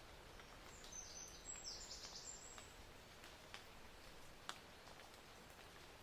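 Faint outdoor ambience with a short run of high chirps about a second in, and a few soft clicks later.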